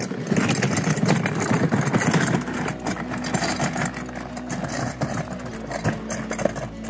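Loaded folding wagon cart pulled along a dirt-and-gravel trail, its wheels rattling and crunching over the ground. Loudest for the first two seconds or so, then quieter.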